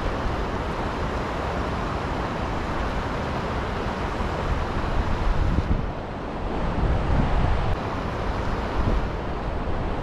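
Creek water rushing steadily over a low rock ledge, with wind buffeting the microphone in low rumbling gusts several times.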